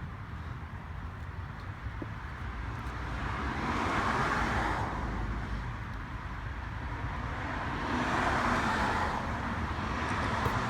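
Road traffic passing: the noise of cars going by swells and fades, loudest about four seconds in and again about eight seconds in.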